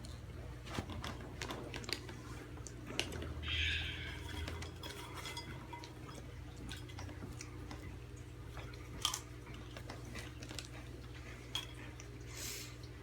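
Takis rolled tortilla chips being eaten from a bowl: crunching and chewing with scattered clicks and clatters, louder and longer about three and a half seconds in, over a steady low hum.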